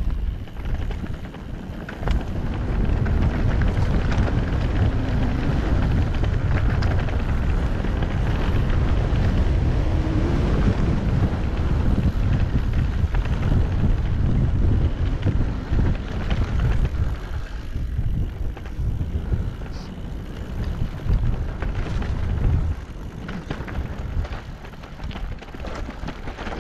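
Wind buffeting the microphone as a mountain bike rides down a rocky trail, with tyres rolling and the bike clattering over loose stones. It is loudest from about two seconds in until a little past the middle, then eases somewhat.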